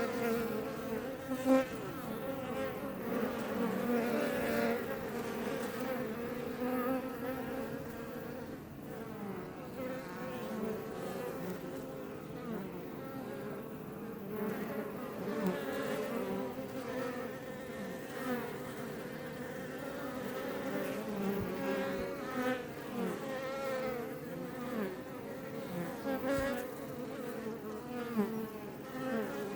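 Many Iberian honey bees buzzing in flight around a Langstroth hive entrance, a dense, steady hum with individual bees rising and falling in pitch as they pass close by.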